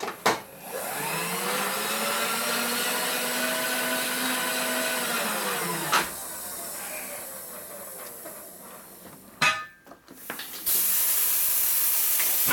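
A machine-tool motor spins up, runs steadily for a few seconds, then winds down and stops with a click about six seconds in. A loud steady hiss starts near the end.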